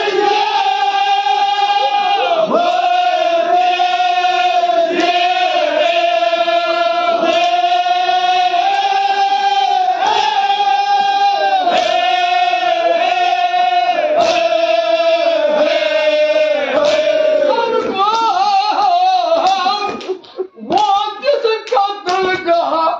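A group of men chanting a mourning lament in unison, with a sharp slap about every second and a quarter, in the rhythm of chest-beating. Near the end the chant breaks up into scattered voices.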